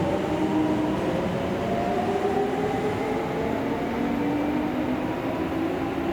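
Kintetsu electric commuter train running through the station: a steady rumble of wheels on rails with the whine of its traction motors, several tones slowly shifting in pitch.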